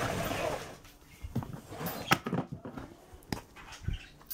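Plastic DVD cases being handled and put away in a plastic storage bin: a short scraping rustle at the start, then scattered clicks and knocks of cases against each other.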